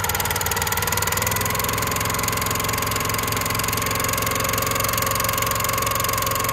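Small single-cylinder gasoline engine of a 25-ton log splitter running steadily just after a cold start, warming up. Its pitch rises a little about a second and a half in, then holds steady.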